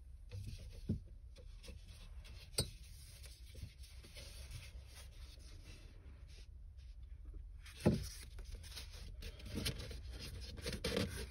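Faint handling noises: a flexible insulated beer line and its connector rubbing and tapping as they are brought up to a bag-in-box polypin's plastic tap, with a louder knock about eight seconds in and steadier rubbing near the end.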